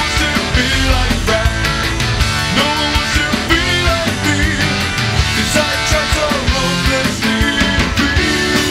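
Rock music from a band recording, with guitar and drums playing at a steady, loud level.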